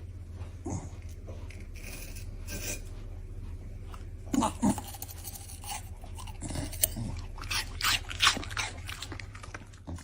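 A dog chewing and crunching on something, with irregular crunches and sharper cracks, the loudest about four and a half and eight seconds in, over a steady low hum.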